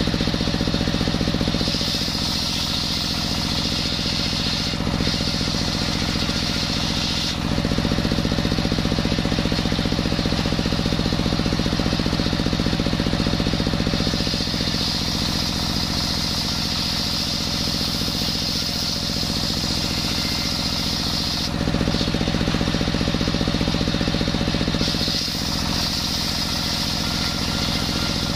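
Stationary single-cylinder diesel engine running steadily, belt-driving a circular saw blade that rips lengthwise through coconut-wood planks. The higher cutting noise comes and goes over several long passes and drops back during short breaks between them, about two seconds in and again about three-quarters of the way through.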